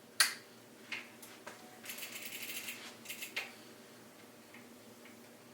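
Boxed bicycle pedals being handled and set down: a sharp click, a couple of knocks, a short rattle of quick ticks, then a few more clicks.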